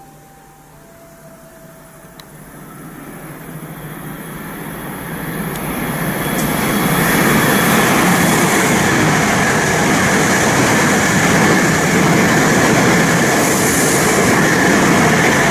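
Shinkansen train passing through the station at speed without stopping. Its rushing noise builds over about seven seconds and then stays loud and steady.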